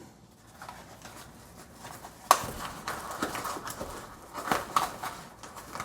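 Light handling noises from unpacking: faint rustling with a sharp knock a couple of seconds in, then a few smaller clicks and knocks.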